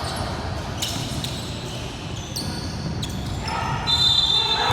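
Basketball game in a gym: a ball bouncing on the court, with short sneaker squeaks and a high steady squeal near the end.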